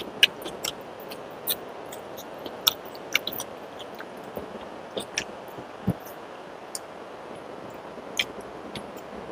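Eating sounds from chewing with the mouth: irregular wet clicks and smacks, a dozen or so, over a steady low hiss.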